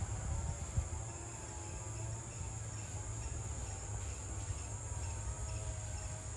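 Steady, high-pitched insect trilling in the background, with a low rumble underneath.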